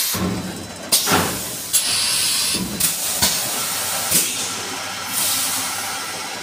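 Automatic eight-head volumetric oil filling machine running: sharp clicks and clunks from its pneumatic mechanisms, with two bursts of high air hiss over a steady mechanical background.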